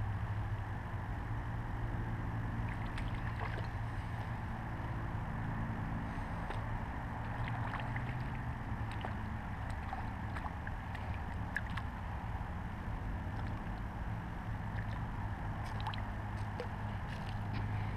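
A steady low motor hum, with scattered light splashes and ticks as a hooked bluegill thrashes at the water's surface and is drawn in.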